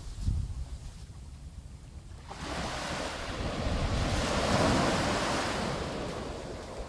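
Small surf waves breaking on a sandy beach: after about two seconds of low wind rumble on the microphone, a wave's wash rises to a broad hiss about halfway through and slowly fades.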